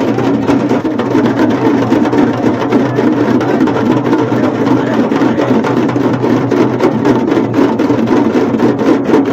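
A group of large stick-beaten drums played together in a fast, dense, steady rhythm, loud throughout.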